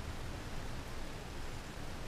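Steady rain falling on a vintage car's roof and windshield, heard from inside the closed cabin: an even hiss with a low rumble underneath.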